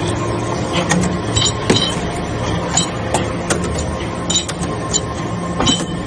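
Hydraulic metal-chip briquetting press running: a steady hum from the power unit, with frequent irregular sharp metallic clinks.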